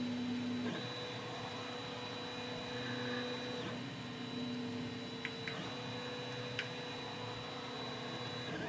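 A steady electrical hum with a high whine, cutting out briefly and resuming about every two to three seconds, with two faint small clicks near the middle.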